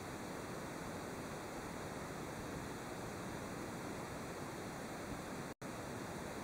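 Low, steady hiss with no distinct events, broken by a momentary dropout to silence about five and a half seconds in.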